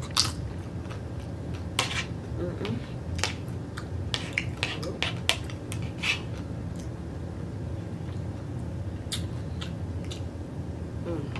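Eating sounds from a mukbang: a metal spoon clicking against a plate and teeth, with mouth clicks and smacks from chewing taco and tortilla chips. They come as scattered sharp clicks, thickest near the middle, over a low steady hum.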